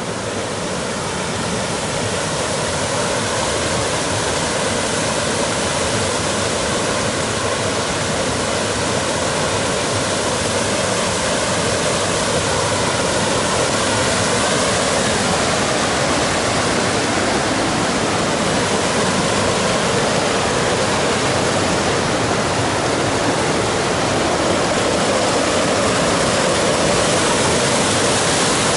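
River water rushing down cascades between rock ledges. It is a steady noise of falling water that grows gradually louder as the cascade comes nearer.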